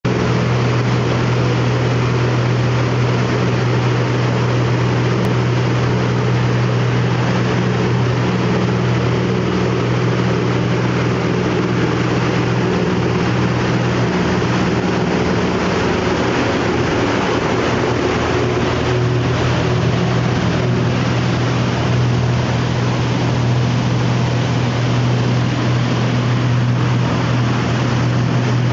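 Twin Yamaha outboard motors running steadily at speed, a constant engine hum under the loud rush of the boat's churning wake.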